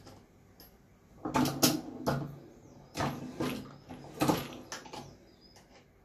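Clacks and knocks from handling a hand-operated reloading press and brass 9mm cases, in several short clusters between about one and five seconds in.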